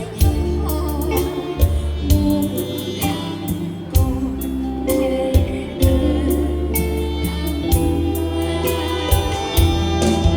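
Music: a song with singing over a band, with drum hits and a steady bass.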